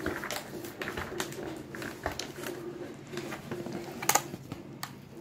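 Packaging being handled and pulled at to get it open: scattered light clicks and crackles, with a sharper snap about four seconds in.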